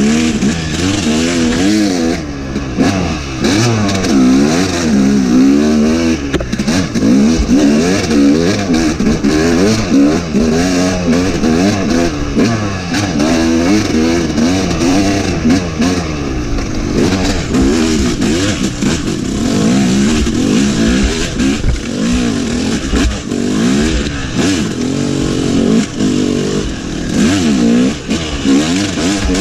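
Yamaha YZ250 two-stroke dirt bike engine revving up and down over and over as it is ridden hard along a trail, the pitch climbing and dropping every second or two with the throttle and gear changes.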